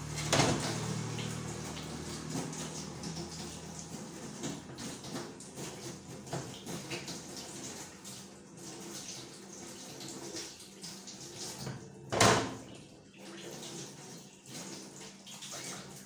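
Tap water running and splashing onto metal gas-stove grates as they are rinsed in a sink, with a single loud knock about twelve seconds in.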